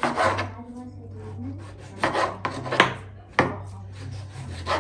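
Kitchen knife cutting on a wooden chopping board: a handful of separate strokes, under a second to a second and a half apart, over a low steady hum.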